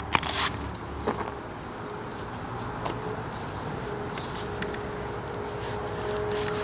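A few light clicks and knocks in the first second, from a tripod head's locking knob being tightened. Then a steady low background rumble with a faint hum.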